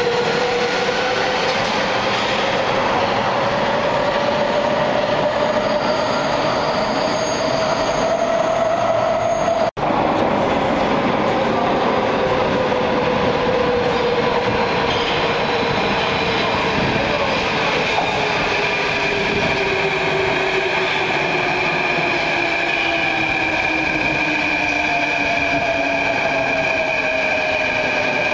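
Athens Metro electric trains: one moving off along the platform, its motors giving a rising whine. After a brief break, a second train approaches and brakes into the station with a slowly falling whine, a high steady squeal and rail noise.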